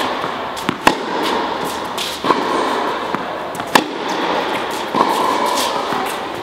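Tennis balls struck by rackets in a groundstroke rally: four sharp pops about a second and a half apart. Some are led by a softer click of the ball bouncing just before the hit. Steady background noise of the indoor hall runs underneath.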